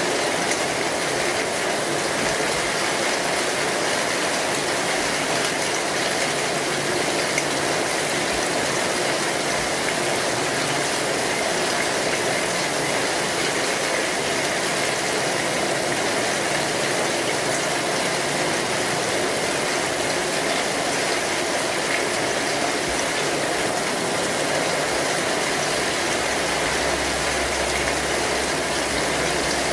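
Kinetic sand crumbling and being pressed, a steady, dense crackling that does not pause.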